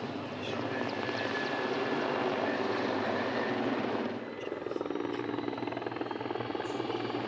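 Mil Mi-24 attack helicopter in display flight: steady rotor chop with a turbine whine from its twin turboshaft engines. About four seconds in the sound drops a little and loses some of its top.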